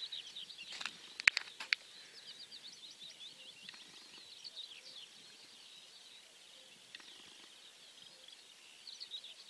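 Small birds chirping and twittering in a steady chorus of short, quick calls. Three sharp clicks come about a second in.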